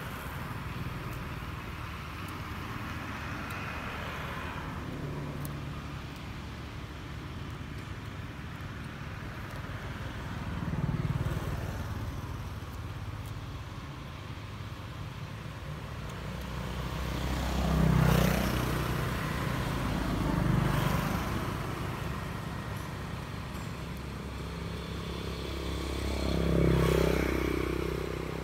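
Motor vehicles passing one after another over a steady outdoor background, each one swelling and fading over a couple of seconds, about four times.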